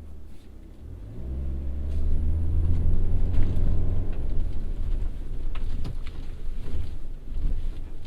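Subaru Forester e-Boxer's flat-four boxer engine pulling under load off-road, its pitch rising from about a second in as it accelerates, then running on more steadily with a few short knocks from the car near the end.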